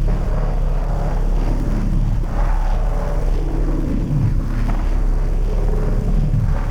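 Harsh noise: a loud, dense, distorted low rumble with shifting, smeared noise textures above it, with no steady rhythm or clear pitch.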